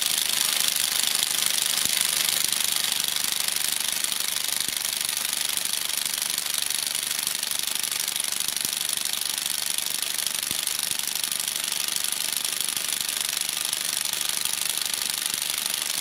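Parkside PASSK20 20 V cordless impact wrench hammering steadily on a car wheel nut at its 200 Nm setting, without breaking loose a nut tightened to only 130 Nm.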